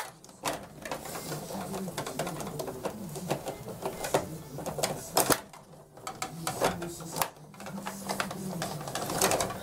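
Stiga table hockey game in fast play: a rapid, uneven clatter of clicks and knocks as the rods are pushed, pulled and spun and the plastic players strike the puck and each other. The clatter drops away briefly three times: about half a second in, midway through, and about two-thirds of the way through.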